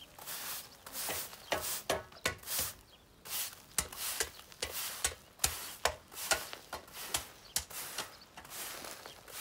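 Stiff-bristled push broom scraping across dry, dusty dirt in repeated strokes, about two a second.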